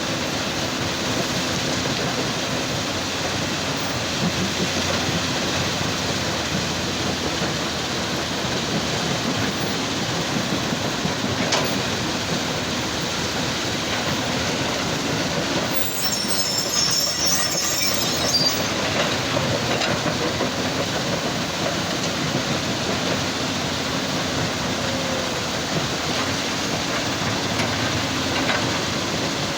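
Heavy machinery at a stone crusher, the excavator and crusher running together as a loud, steady rumble with a low hum. About sixteen seconds in, a high metallic squeal and scraping rises over it for a couple of seconds.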